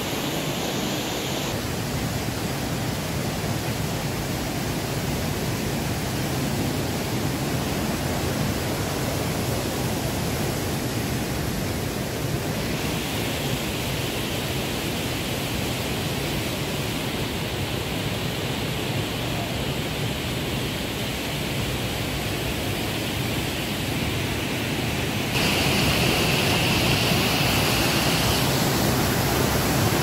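Steady rushing of the Düden waterfall's water flowing and cascading. It becomes noticeably louder about 25 seconds in.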